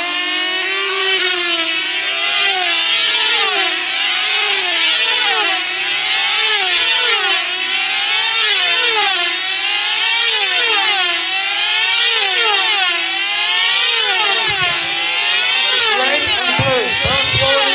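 Several control-line team-race model aircraft with small 2.5 cc diesel engines buzzing at full speed. Their pitch rises and falls about once a second as each plane circles the pilots. A few low thumps come near the end.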